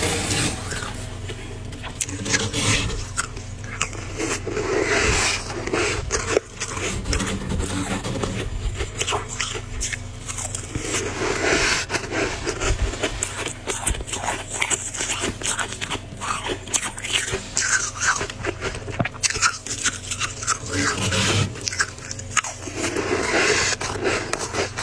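Thick, powdery freezer frost being scraped and dug out with a plastic spoon: a dense, continuous crackly crunching with many small sharp clicks.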